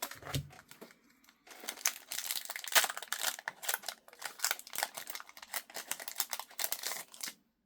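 Foil Play Booster pack wrapper crinkling and tearing as it is opened by hand.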